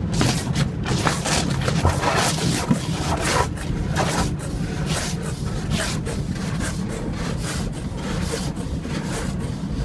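Automatic car wash's cloth strips and brushes rubbing and swishing over the car body in irregular sweeps, heard from inside the car, over a steady low hum of the wash machinery.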